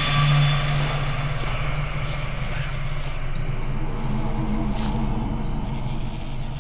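A steady low drone with a deep rumble under it, and a few short high chirps scattered across it: a film soundtrack's forest ambience.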